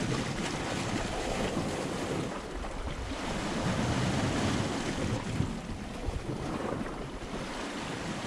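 Sea water washing against a rocky shore, with wind buffeting the microphone.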